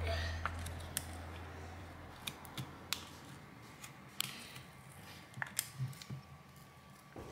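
Scattered sharp clicks and scrapes of a thin metal pry tool working along the edge of a Samsung Galaxy S20 FE's plastic back cover, prying it free of its factory adhesive. A low hum fades out over the first two seconds.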